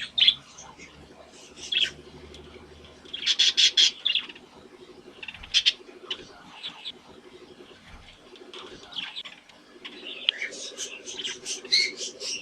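Budgerigars chirping and chattering in short high calls, with a quick run of chirps a few seconds in and busier warbling chatter near the end.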